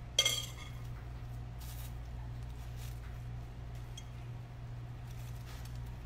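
A metal spoon clinks once against the mixing bowl just after the start, then soft handling noise as a flour tortilla is rolled around the filling, over a steady low hum.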